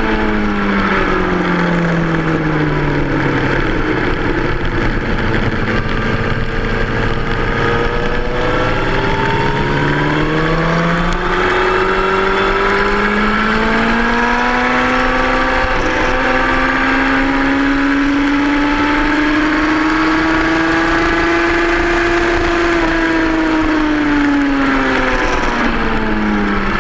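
2003 Yamaha R1's inline-four engine under way on a race track, with steady wind rush. The engine note falls as the bike slows over the first few seconds. It climbs steadily under acceleration from about ten seconds in and drops again near the end.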